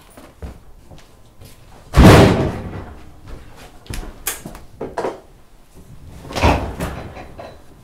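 Two loud bangs about four and a half seconds apart, each with a short echoing tail, with light clicks and knocks between them.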